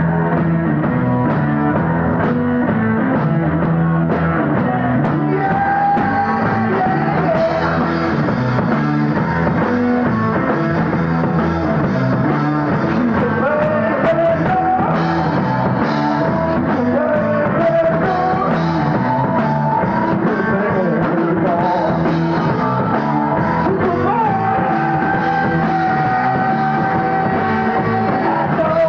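A rock band playing live, with electric guitar, bass and drums, and held, sliding melody notes over a steady beat.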